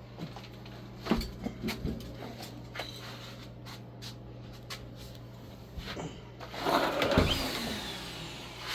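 Handling and movement noises: scattered knocks and clicks, then a louder rustling scrape about seven seconds in, over a steady low hum.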